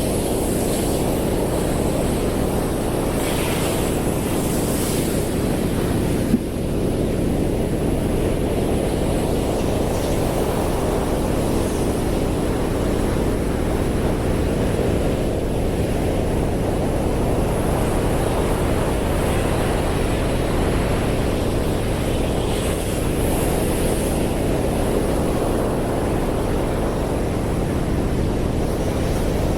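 Atlantic surf breaking on a sandy beach: a steady low roar of waves, with a single brief click about six seconds in.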